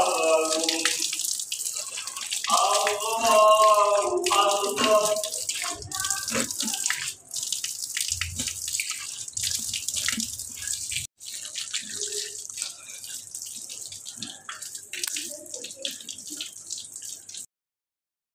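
Water running from a tap and splashing as hands scoop it onto the face and arms for ablution, with a man's voice in the first few seconds. The sound cuts off suddenly near the end.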